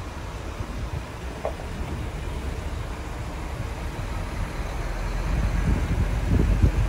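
Diesel engine of a tractor-trailer truck running as it drives slowly past, the low rumble growing louder over the last couple of seconds, with a couple of low thumps near the end.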